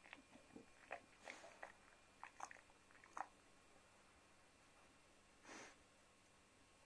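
A Chow Chow chewing and gnawing on food held between its front paws: a run of sharp, irregular crunching clicks in the first three seconds or so, then a brief breathy sound a little past halfway.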